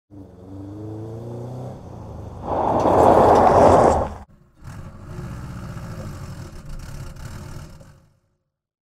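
Car engine sound effect: a rising pitch as the engine revs, a loud burst of engine noise about two and a half seconds in, a brief break, then a steady low running rumble that stops about eight seconds in.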